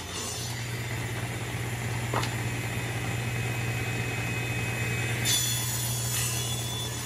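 Table saw running, its blade spinning with a steady motor hum, while a crosscut sled feeds a glued-up walnut, cherry and maple board through the blade for end-grain strips. The higher whine changes about five seconds in.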